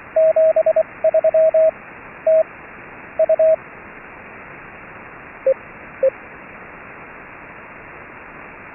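Morse code (CW) tones keyed by hand over a steady hiss of HF radio static: a run of dits and dahs at one pitch for the first three and a half seconds, then two single short dits at a slightly lower pitch from the other operator, then only the static.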